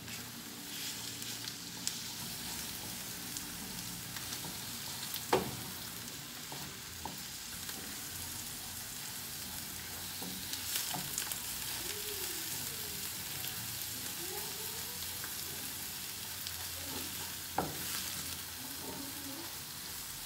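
Eggplant and herbs sizzling steadily in oil in a frying pan while a silicone spatula stirs them, with two sharp knocks against the pan.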